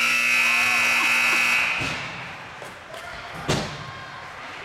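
Ice rink scoreboard horn sounding one steady blast that stops after about two seconds, signalling the end of the period. A single sharp thump follows about three and a half seconds in.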